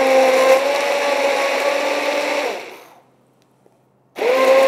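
Hand-held immersion blender running in a plastic container of herbs and liquid, a steady motor whine. It stops just before three seconds in, and after about a second of quiet starts again, its whine rising as it spins up.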